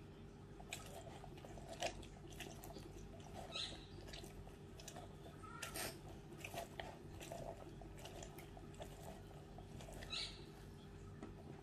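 Half a lemon twisted and pressed down on a plastic hand citrus reamer: faint, irregular wet squishing with short clicks as the rind grinds on the plastic ridges.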